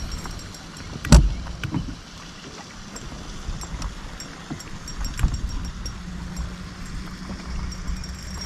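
Low steady rumble of wind and water around a small fishing boat, with a sharp knock about a second in and a smaller one about five seconds in.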